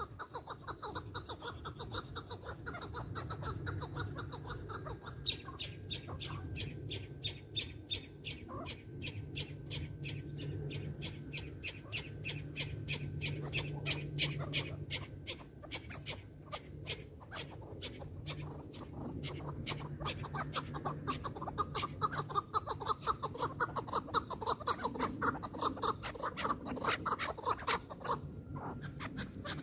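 Chukar partridges calling: a long run of sharp, repeated chuck notes, several a second, starting about five seconds in and growing louder near the end.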